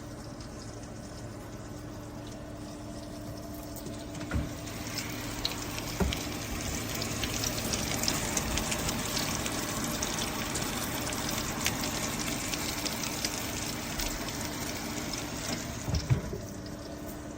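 Nuwave Bravo Pro air fryer toaster oven running: its convection fan makes a steady rushing noise over a low motor hum, loud enough to be likened to a truck. The rush grows a little louder a few seconds in, with a few light knocks.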